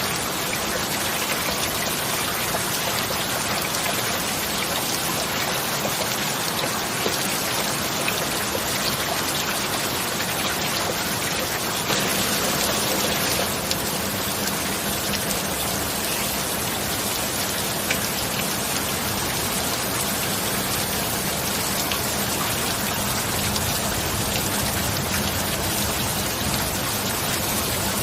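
Steady heavy rain: an even, dense hiss of falling drops with scattered single drop ticks. It swells slightly for a second or so about twelve seconds in.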